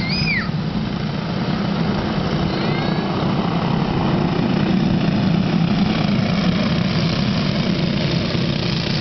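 Small go-kart engines racing, a steady buzzing drone that swells a little around the middle.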